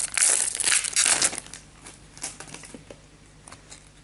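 Foil trading-card booster pack wrapper crinkling as the cards are pulled out of the freshly torn pack, for about a second and a half, then only faint card-handling clicks.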